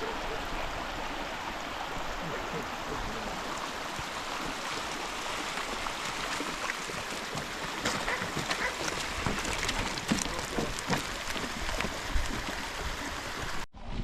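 Steady rush of a mountain stream's flowing water. Scattered short clicks and knocks join it from a little past halfway, and it cuts off abruptly just before the end.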